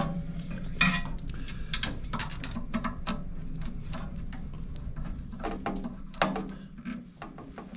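Screwdriver driving and snugging the screws that hold the upper burr holder of a Mythos Basic espresso grinder: an irregular run of small metallic clicks and scrapes.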